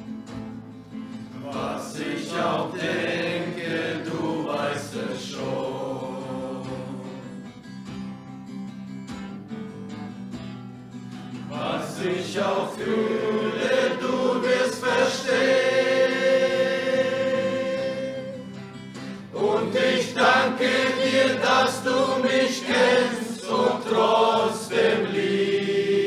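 Christian worship song sung in German by a group of voices with instrumental accompaniment, swelling louder about halfway through.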